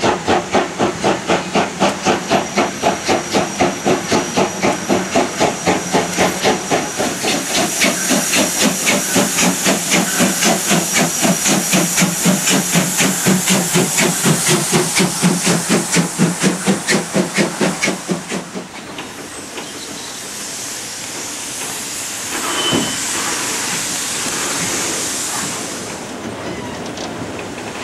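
Class 50 two-cylinder steam locomotive 50 622 working a train, its exhaust chuffing in a rapid, regular beat with steam hissing. After about 18 seconds the chuffing stops and a steady rushing noise of the moving train takes over.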